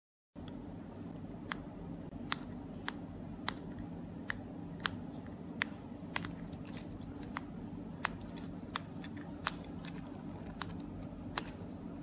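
Buttons on handheld 433 MHz four-button key fob remotes clicking as they are pressed, sharp single clicks at an uneven pace of about one or two a second, over a steady low hum.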